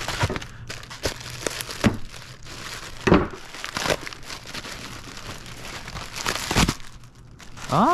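Plastic packaging crinkling and rustling as an item is pulled out of and unwrapped from inflated plastic air-cushion wrap, with irregular louder rustles about three and six and a half seconds in.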